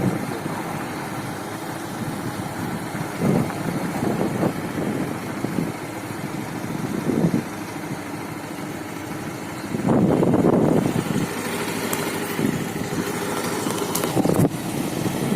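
Road traffic: motor vehicle engines running, with a louder passing stretch about ten seconds in.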